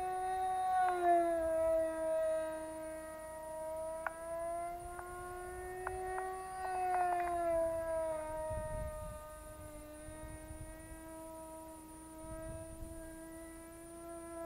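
Two-stroke MP-JET .061 model-aircraft engine on a small radio-controlled plane in flight: a steady high-pitched buzz whose pitch slowly rises and falls as the plane passes and turns, dropping about a second in and again near the middle. Low wind rumble on the microphone comes in now and then.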